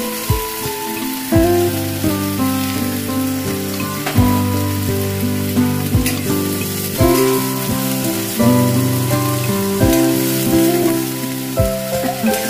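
Background instrumental music with held notes changing about once a second, over the steady sizzle of chopped gourd frying in a steel wok as it is stirred.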